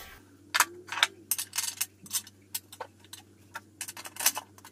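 Irregular light metallic clicks and clinks as a new flat idler pulley and its hardware are handled and set onto a riding-mower deck.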